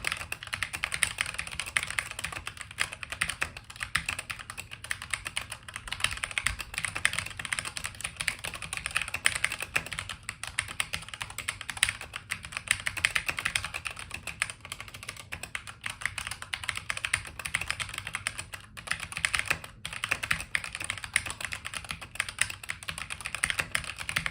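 Keychron C1 mechanical keyboard with linear red switches being typed on continuously in a fast stream of keystroke clacks, with brief pauses about ten seconds in and again near twenty seconds.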